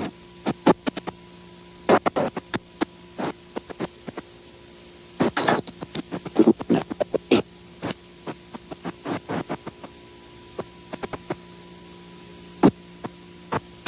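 Microwave oven running with a steady electrical hum, broken by many irregular sharp snaps and pops, some in quick clusters.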